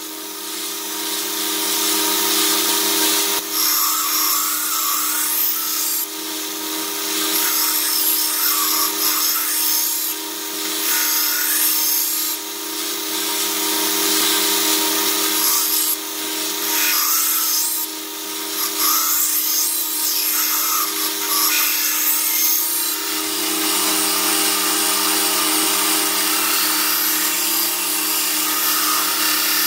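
Belt grinder running with a steady motor hum while steel is ground against the belt. The high grinding hiss swells and eases every few seconds as the knife bevel is passed across.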